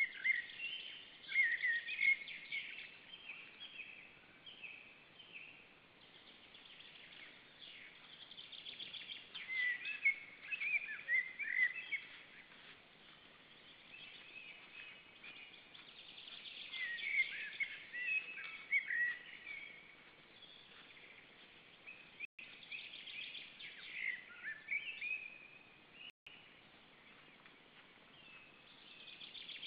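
Wild songbirds singing in phrases a few seconds long that return about every seven seconds, over a faint steady hiss. The sound cuts out briefly twice in the second half.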